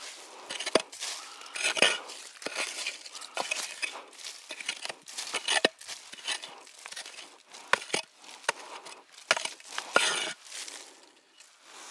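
Small hand pick digging into stony soil at the foot of a boulder: irregular sharp clinks of the metal head striking earth and stones, roughly one a second, with loose dirt and gravel scraping and rustling between strikes.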